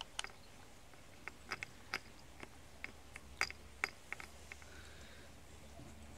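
Kitten eating dry kibble from a plastic bowl: a run of small, irregular crunches and clicks, thinning out about two-thirds of the way through.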